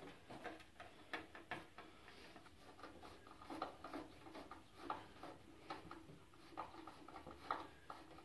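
Screwdriver driving screws with washers into a mounting plate on a bandsaw frame: faint, irregular small ticks and scrapes of the tool and screws.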